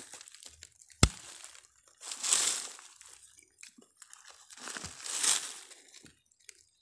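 A hand scraping and raking through dry soil and dead leaf litter, two rustling, crunching passes, with one sharp knock about a second in.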